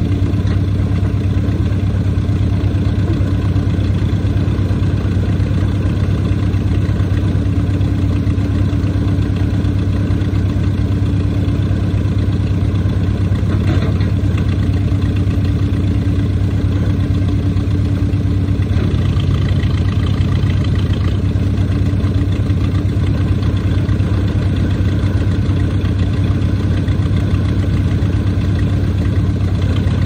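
The engine of a 1979 Case 580C backhoe loader running steadily near idle while the backhoe arm is worked on its hydraulics. The engine note shifts slightly a little past halfway.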